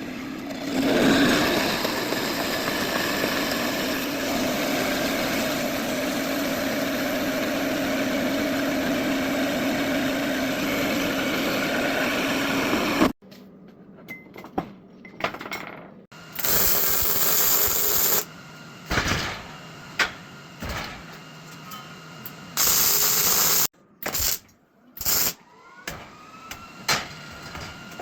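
Power tool cutting through a length of steel rebar, running steadily for about thirteen seconds before stopping abruptly. After that come short bursts of hissing noise and scattered metallic knocks.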